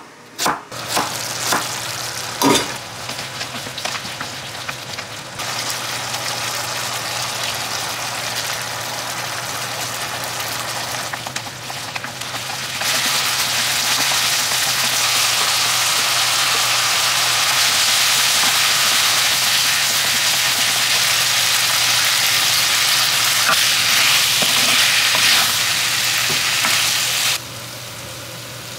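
A few knife chops on a wooden cutting board, then diced potatoes and carrots sizzling in gochujang sauce in a frying pan as they are stirred with a wooden spatula. The sizzle gets louder about halfway through and eases off near the end.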